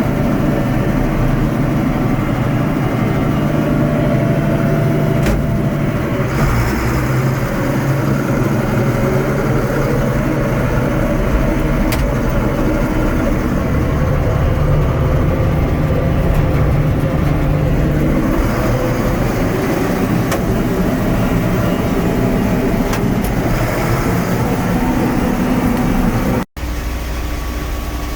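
Heavy farm diesel engines running steadily as a tractor on dual wheels works to pull a stuck combine out of wet ground. The sound cuts out abruptly for an instant near the end and comes back a little quieter.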